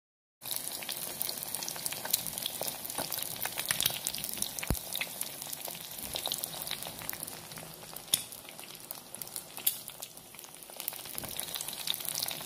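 An egg frying in hot oil in a pan, sizzling with many small pops and crackles; the sizzle starts abruptly about half a second in.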